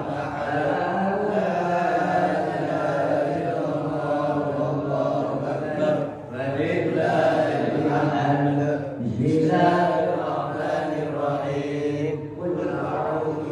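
A man reciting the Qur'an aloud in Arabic in a long, melodic chant, pausing briefly for breath about six and nine seconds in.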